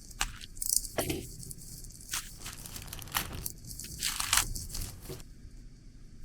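Packaging crinkling and tearing in irregular bursts, the loudest a few seconds in.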